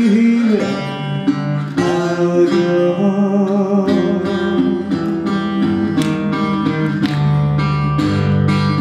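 Live blues band playing the closing phrases of a song: a woman's sung note ends about half a second in, then guitar carries on, picking single notes and chords.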